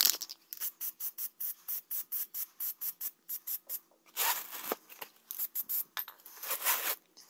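Aerosol spray can of Plasti Dip being shaken, its mixing ball rattling in quick even clicks made faster by triple-speed playback, with two hissing bursts of spray about four and six and a half seconds in.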